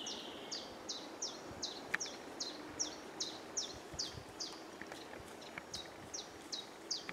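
A wild bird calling a steady series of short, high notes, each sliding downward in pitch, about two to three a second.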